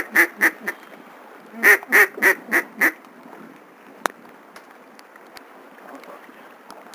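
A mallard duck call blown in two quick runs of loud quacks, about four notes and then five, to ducks on their way in. After that there is steady wind noise and one sharp click about four seconds in.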